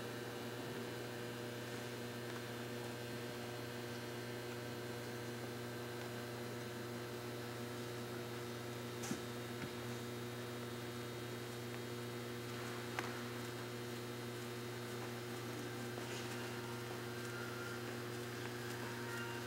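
Steady low electrical mains hum, with a couple of faint ticks about nine and thirteen seconds in.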